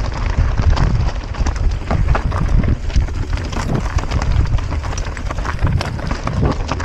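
Mountain bike riding over a rough dirt trail: wind buffeting the microphone in a heavy rumble, over a constant rattle of knocks and clicks as the bike and tyres hit rocks and roots.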